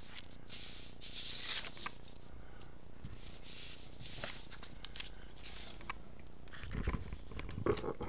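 Sheets of paper sliding and rustling against one another and across a wooden tabletop as they are pushed into place, in uneven strokes with a few light taps, and a dull bump near the end.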